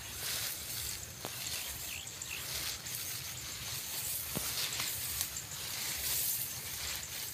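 Wind blowing across a rice paddy, rustling the rice plants in a hiss that swells and fades in gusts, with low rumbling buffeting on the microphone and a few faint clicks.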